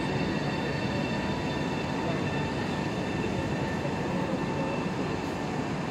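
Electric passenger train running along the station track, a steady rumble of wheels on rail with several steady high-pitched whining tones over it.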